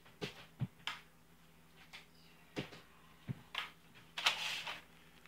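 Wooden spoon stirring thick hot-process soap paste in a pot: a scattering of short knocks and clicks against the pot, then a longer scrape about four seconds in.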